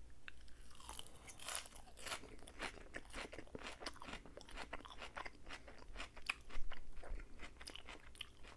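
Close-miked crunching and chewing of a mouthful of crisp lettuce salad with shredded cheese, many quick wet crunches one after another.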